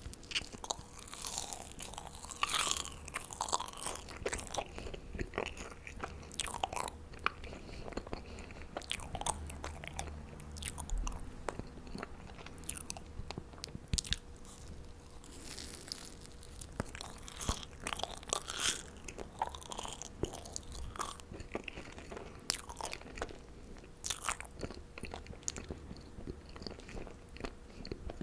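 Close-miked mouth sounds of marshmallows being bitten and chewed: irregular sticky clicks and smacks that come in clusters throughout.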